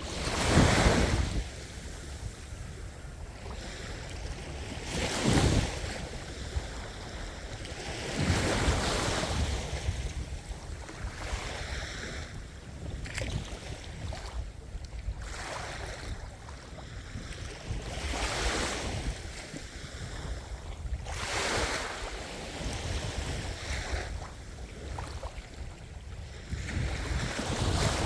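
Ocean waves breaking and washing ashore, a surge of surf every few seconds over a constant low rumble.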